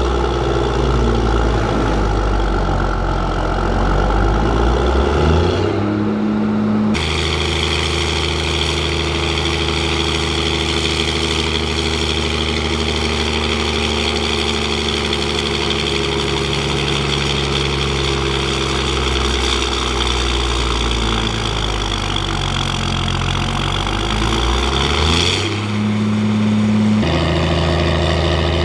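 Fendt Favorit 824 tractor's six-cylinder diesel engine running at a steady speed. Its pitch rises briefly twice, near the start and near the end, and the sound changes abruptly at those points.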